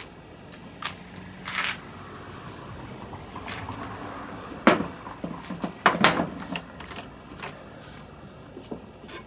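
Small parts of a hose reel's pawl and locking mechanism being handled during disassembly: scattered clicks and knocks with some rubbing. The loudest clunks come near the middle, a few in quick succession.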